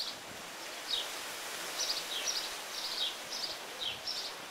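Small birds chirping over a steady hiss: a dozen or so short, high chirps, some falling in pitch, coming two or three a second.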